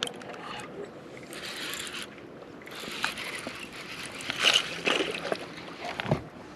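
Water splashing and sloshing at the side of a small boat as a hooked largemouth bass is reeled in, coming in uneven bursts with sharper splashes in the second half.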